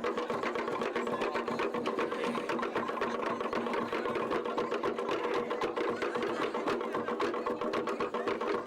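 Rapid, steady mechanical clatter over a steady hum, like a small machine running.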